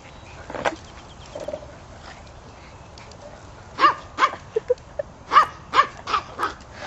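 Barking: a quick run of about eight short barks, starting a few seconds in.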